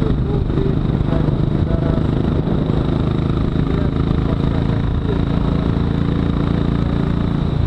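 Royal Enfield Classic 500's single-cylinder engine running at a steady cruise, heard from the rider's position on the moving motorcycle.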